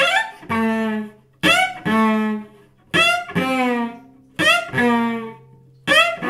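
Cello imitating a donkey's bray: bowed hee-haw pairs, each a short high squeaky note followed by a longer lower note that sags in pitch, repeated about every second and a half, four times.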